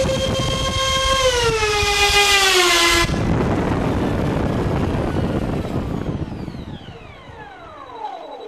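Twin electric ducted fans of an E-flite F-15 model jet running at full power with a high, steady whine. The pitch sags about a second in as the battery runs low, and the power cuts off suddenly about three seconds in. The fans then spin down, leaving a fading rush of air and a falling whine.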